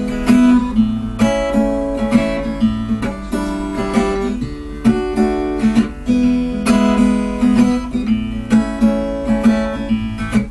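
Acoustic guitar strumming the introduction to a song in even, regular strokes.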